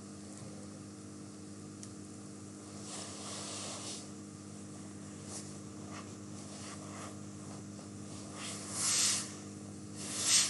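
Background of a desk recording microphone: a steady low electrical hum with hiss, broken by a few short puffs of noise, one about three seconds in and two louder ones near the end.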